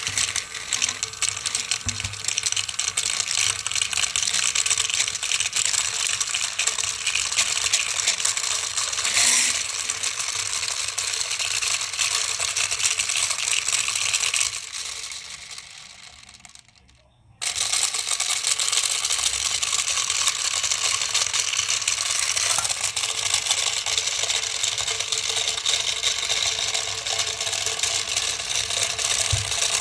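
Toy vortex washing machine overdriven on high voltage, running with a dense, loud rattling crackle. About fifteen seconds in it dies away over a couple of seconds, then starts again abruptly.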